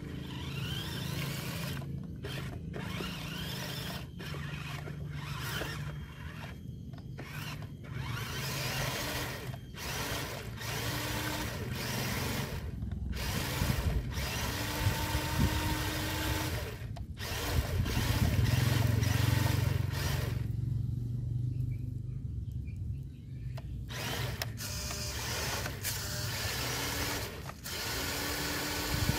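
Electric motor and gearbox of a radio-controlled scale truck whining under load as it tries to drive out of mud, wheels spinning without getting traction. The motor stops and starts again several times.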